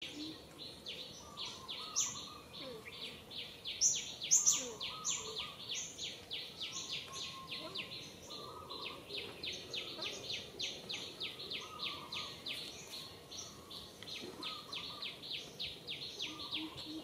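Outdoor ambience dominated by steady, rapid high-pitched chirping, about four or five chirps a second, with a few louder, higher chirps around two and four seconds in.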